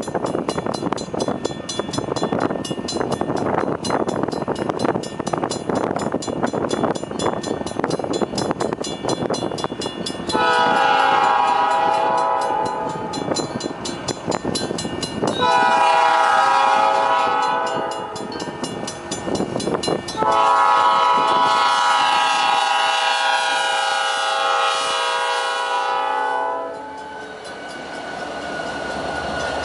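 Train horn sounding three loud blasts, several notes at once, the last one the longest, over the train's rolling rumble and wheel clatter. The first ten seconds hold only the rumble and clatter.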